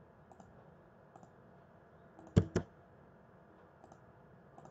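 Computer mouse button clicked twice, two sharp clicks about a fifth of a second apart, over faint room tone.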